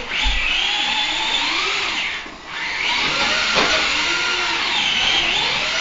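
Electric motors of radio-controlled cars whining, the pitch rising and falling as they are throttled. The whine dips briefly about two seconds in, then picks back up.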